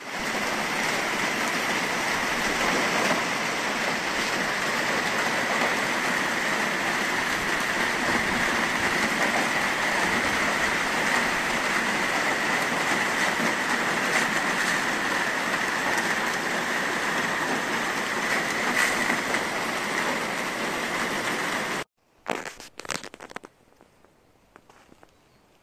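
Steady, loud rush of falling water, cutting off suddenly about 22 seconds in.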